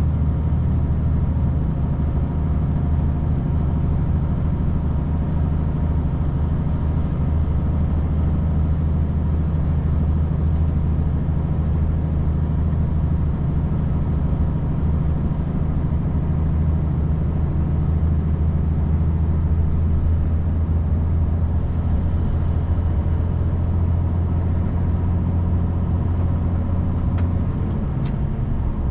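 A vehicle's engine and tyre noise while driving: a steady low drone. The engine tone shifts slightly near the end.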